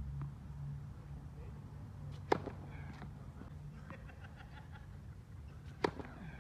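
Tennis serve practice on a hard court: a sharp knock about two seconds in and a few light taps of the ball being bounced before the serve, then the crisp pop of the racket striking the ball on a serve just before the end.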